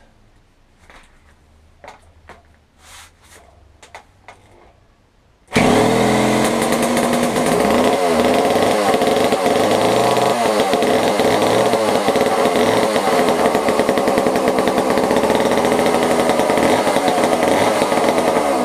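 Two-stroke petrol chainsaw engine catching at once when its crankshaft is spun by a reversed electric drill, after a few faint knocks. About five seconds in it bursts into loud running, revving up and down for several seconds, then runs steadily until it drops away near the end.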